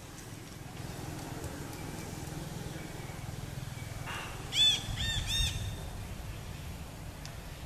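Three short, high-pitched animal calls in quick succession about halfway through, each rising and then falling in pitch, over a faint steady low hum.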